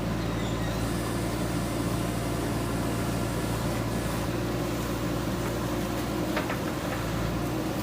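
Diesel engine of a JCB 3DX Super backhoe loader running steadily at constant speed.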